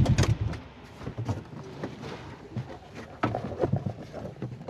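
An idling engine, a fast even pulse, stops about half a second in. After that there are only faint scattered clicks and knocks.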